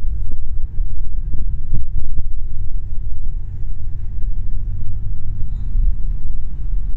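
Steady low rumble of a car's engine and tyres on the road, heard from inside the moving car's cabin, with a few brief knocks in the first couple of seconds.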